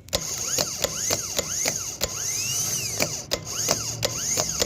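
Rebuilt car starter motor, fitted with new carbon brushes and a new solenoid, energised on the bench and spinning freely with its bendix pinion thrown out. It makes a steady whir with rapid irregular clicking, and the working spin shows the repair has succeeded.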